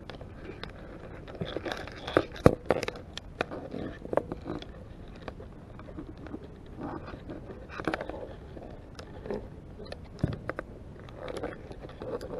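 Irregular clicks and scrapes as a green shore crab's legs and claws scratch and tap on an underwater camera housing. They come thickest in the first few seconds, with the sharpest click about two and a half seconds in.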